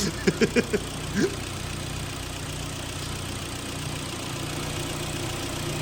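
Freshly overhauled car engine idling steadily during its running-in, a smooth even hum.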